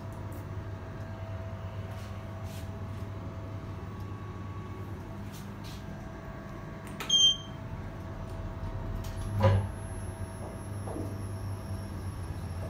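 Kone EcoDisc traction lift heard from inside the car: a steady low hum, a short sharp electronic beep about seven seconds in, and a clunk about two seconds later as the car gets under way.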